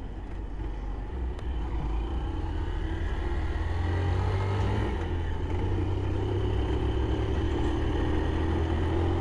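Honda CG 160 Fan motorcycle riding along, its engine running under wind rumbling on a helmet-mounted GoPro microphone, getting louder over the first few seconds as it picks up speed.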